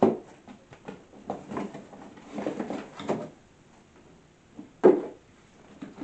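Large cardboard shipping box being handled and turned over: its flaps scraping and rustling, with a louder bump of cardboard a little before the end.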